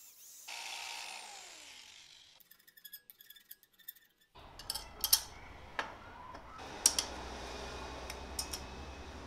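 A cordless drill runs briefly and winds down, its pitch falling steadily, followed by fast light clicking. Then come scattered sharp metal clinks and knocks as a steel bracket and its bolts are handled.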